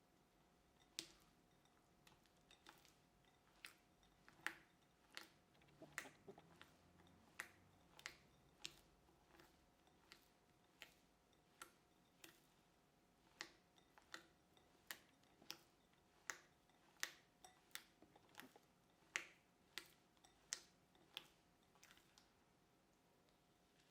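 Light, sharp clicks and taps at uneven intervals, roughly one or two a second, over a faint steady hum.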